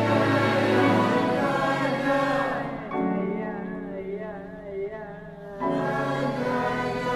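Choir and chamber orchestra performing contemporary classical music, holding sustained chords. About three seconds in the texture thins to a quieter passage of wavering voices, and the full ensemble comes back in near the end.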